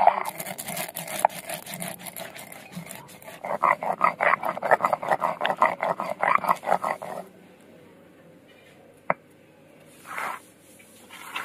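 A stone roller grinding black mustard seeds, ginger and green chillies on a flat grinding stone (shil-nora), pushed back and forth in quick rhythmic strokes with a gritty crunch. The grinding stops about seven seconds in. After that comes a single sharp click and a soft scrape as the paste is gathered up by hand.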